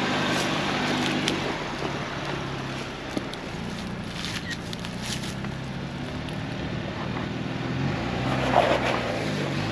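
Ford Bronco engine running at low revs as it crawls up a dirt and rock ledge, its pitch rising and falling near the end as the throttle is worked.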